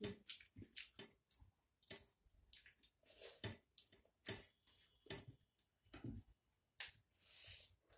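Close-miked eating sounds: wet chewing clicks and lip smacks in quick irregular succession as rice and curry are eaten by hand, with a short breathy hiss near the end.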